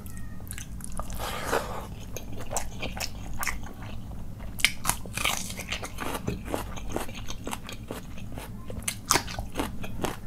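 A person chewing a mouthful of rice and chicken curry close to the microphone, with many irregular sharp crunches and mouth clicks.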